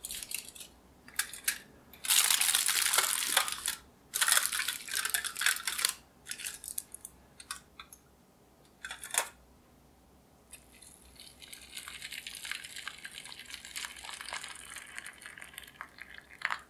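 Aluminium foil crinkling as it is pressed over the tops of glass pudding cups, in two long bursts, then a few light clicks as the glass cups are set down in a baking dish. From about halfway, water is poured into the baking dish around the cups in a steady stream, filling a water bath for baking custard puddings.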